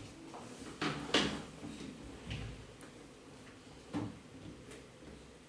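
A sneaker being handled and turned over in the hand close to the microphone: a few light knocks and rubs, the loudest two close together about a second in.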